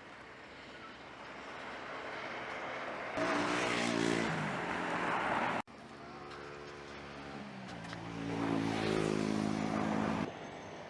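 Freshly rebuilt 1.4-litre four-cylinder, 8-valve engine of a 1982 Chevrolet Chevette pulling under throttle, its pitch climbing. It happens twice: a first pull cut off abruptly a little past halfway, then a second that ends as the throttle is lifted about a second before the end.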